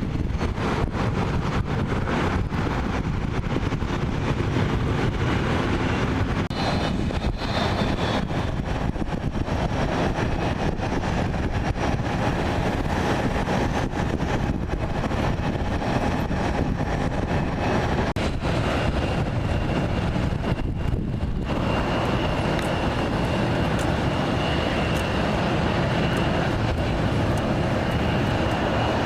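Jet airliner engines running, a steady, dense noise. A steady high whine joins it a little past two-thirds of the way in.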